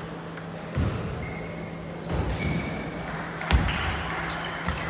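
Table tennis rally: the ball knocking off the bats and the table in a few irregular sharp hits, the loudest about three and a half seconds in, over a steady low hum.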